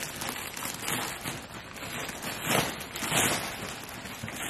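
Rustling of packaging being handled, in irregular bursts of noise.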